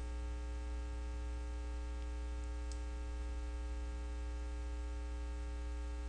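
Steady electrical mains hum with a stack of even overtones, picked up by the recording, and one faint click a little before the middle.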